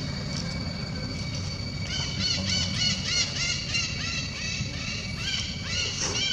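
A fast run of short, high, arched chirps, about four or five a second, begins about two seconds in and carries on. Under it is a low steady background rumble.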